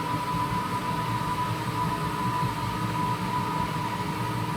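Wall-mounted gas boiler's heat exchanger whistling steadily at a high pitch over a low rumbling, crackling noise. It is water starting to boil in the heat exchanger while the circulation pump runs on its lowest speed, so too little water flows through it.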